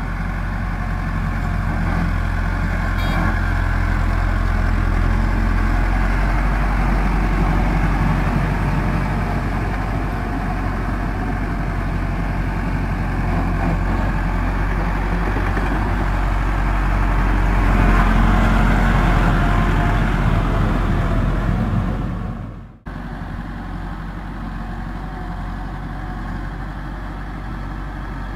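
MF 385 tractor's diesel engine running under load as it pulls a rotavator through deep mud. The sound is steady, swells a little about two-thirds of the way in, then drops out for a moment and runs on a bit quieter.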